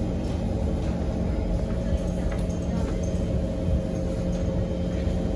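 Interior of a Kawasaki Heavy Industries C151 metro train running on the line: a steady rumble of wheels and running gear with level humming tones from the GTO traction equipment.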